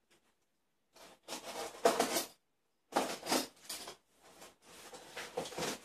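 A plastic-wrapped parcel being cut and torn open: scratchy rustling and tearing of wrap and tape in three short bursts, starting about a second in.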